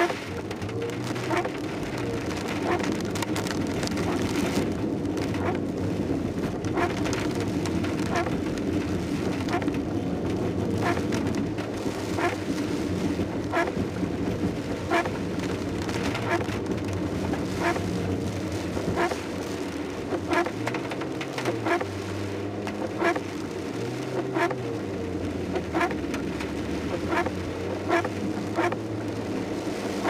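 Inside a Suzuki Swift's cabin driving in heavy rain: steady engine and tyre hum, the engine pitch rising and falling briefly twice in the second half, with rain on the car and the windscreen wipers ticking about once a second.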